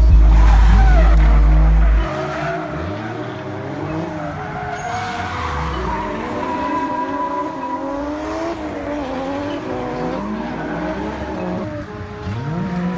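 Heavy phonk bass that cuts off about two seconds in, giving way to cars drifting: engines revving up and down with tyres squealing and skidding.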